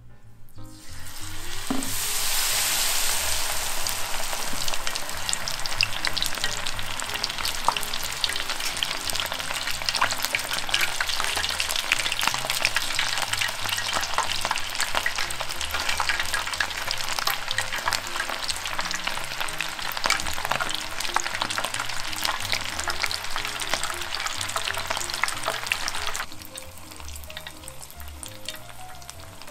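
A batter-coated black tiger prawn goes into deep-frying oil at 180 °C, and the oil starts to sizzle about a second in. The tempura then fries with a dense, steady crackle and hiss, which drops suddenly to a quieter sizzle near the end.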